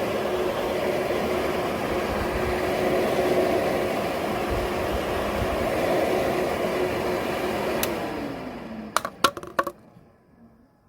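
Nail dust collector and electric nail drill running with a steady whirring hiss and hum. Near the end the motor is switched off and its hum falls in pitch as it spins down, then there is a quick run of sharp clicks.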